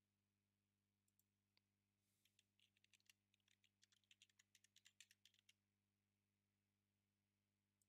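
Faint computer keyboard typing: a couple of single keystrokes about a second in, then a quick run of keystrokes for about three and a half seconds, over a steady low electrical hum.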